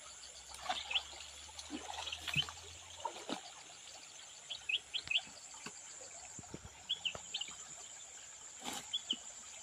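Small birds chirping in short bursts of two or three notes, over a steady high-pitched insect drone. Faint splashes and knocks come from hands working in shallow water.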